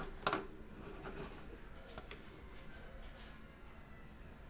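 A few soft computer mouse clicks over quiet room tone, a clear one just after the start and fainter ones about a second and two seconds in.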